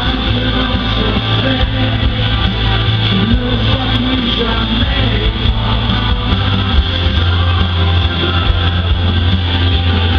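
Live pop music played loud over a concert sound system, with a heavy, sustained bass line and a male singer's voice through the microphone.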